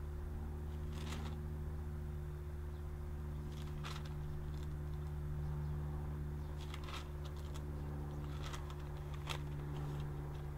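A steady low hum runs throughout, with about five faint, brief rustles or clicks from handling, as of pages or a phone being handled.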